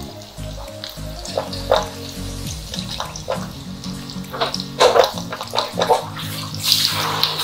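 Background music over oil sizzling in a wok as turubuk fritters fry, with a metal spatula scraping and knocking against the pan several times.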